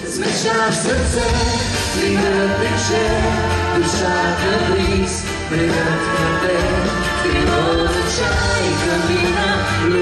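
A live pop duet: a male and a female singer sing over an instrumental band backing.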